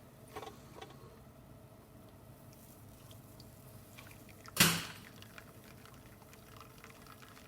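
Zacconi espresso machine during a test shot: a low steady hum with faint dripping, a couple of small clicks near the start, and one short, sharp, loud noise about halfway through.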